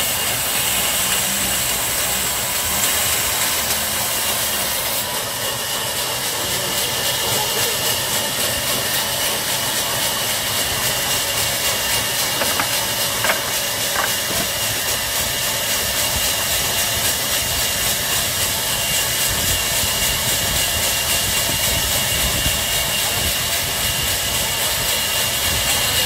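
Large sawmill band saw running and cutting lengthwise through a big log fed by hand: a steady, loud hiss of the blade in the wood over the machine's running noise.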